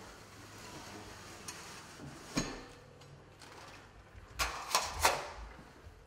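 Wooden knocks and clicks from the frame and latch of a glass observation beehive being handled: one knock, then three quick knocks near the end, the last the loudest.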